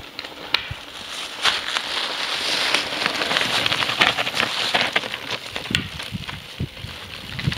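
Mountain bike riding past on a loose gravel and rock descent: tyres crunching and crackling over stones, with sharp clicks and knocks. It grows louder as the bike comes close, is loudest about three to four seconds in, then eases off.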